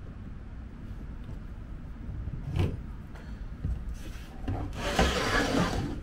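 Plywood pieces sliding and scraping over a plywood surface as they are pushed into position: a brief scrape about two and a half seconds in, then a longer, louder one near the end.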